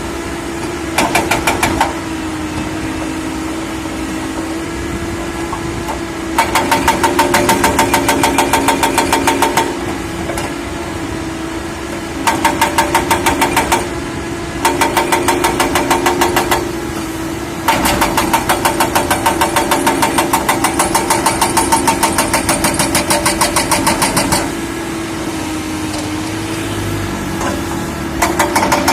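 Excavator diesel engine running steadily, broken by several bursts of fast, even clattering pulses, about ten a second, the longest lasting several seconds.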